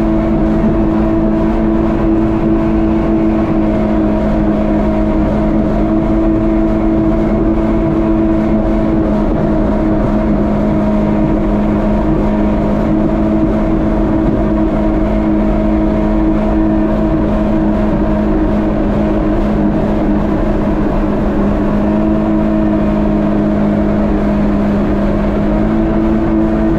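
Jet ski engine running steadily under way, with rushing water and wind noise over it. The engine tone drops back in the middle and comes up again, stepping slightly higher in pitch near the end as the craft speeds up.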